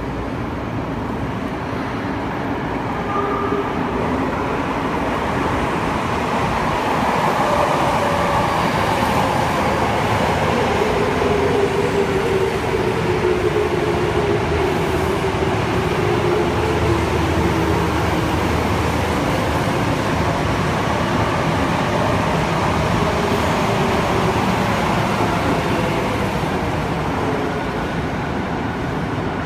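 Tokyo Metro 05 series subway train pulling into an underground station and braking: a steady running noise from the wheels on the rails, with a whine that falls in pitch as the train slows to a stop near the end.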